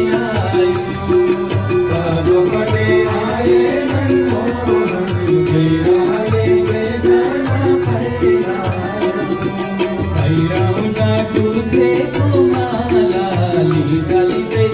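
Instrumental interlude of a Nepali bhajan: tabla drumming with a regular high clicking percussion beat under a short melodic note repeated over and over.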